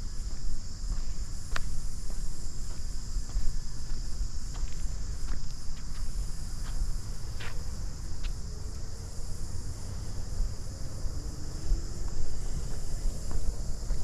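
Cicadas droning in a steady, high, even buzz, with scattered light footsteps on a paved bush path.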